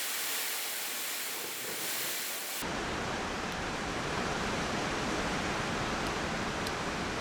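Steady, even hiss with no distinct events. About two and a half seconds in it changes suddenly to a fuller hiss that reaches lower, as at an edit.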